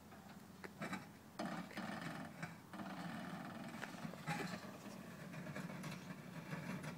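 Honda Civic wagon rolling down steel trailer ramps, its underside rubbing and grinding on the ramps: a few knocks in the first second and a half, then a steady rough scraping and grinding.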